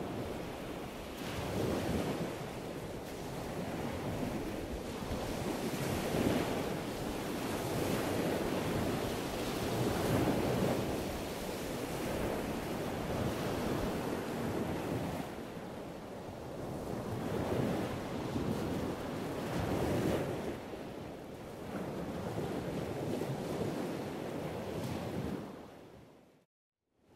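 Wind rushing over the microphone of a camera on the move, a steady noise with no pitch that swells and eases every few seconds. It cuts out to silence for a moment near the end.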